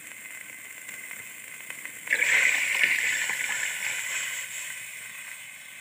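Soaked rice and its water tipped from a glass bowl into a pot of masala liquid, splashing in suddenly about two seconds in and fading away over the next few seconds.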